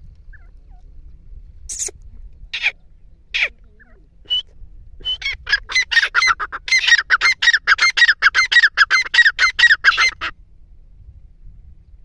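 Grey francolin calling: a few single shrill notes, then from about five seconds in a loud, rapid run of repeated notes, roughly five a second, that stops abruptly a couple of seconds before the end.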